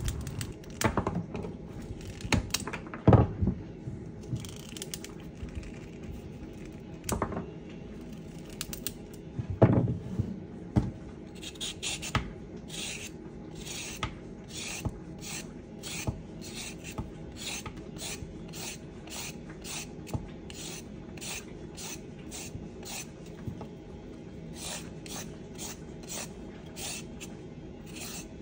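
A few knocks while carrots are trimmed with a kitchen knife, then a Y-shaped vegetable peeler scraping down a raw carrot in quick repeated strokes, about two a second.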